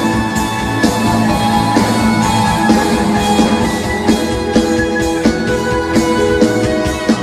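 Instrumental band music with guitar and a drum kit keeping a steady beat, under held chords.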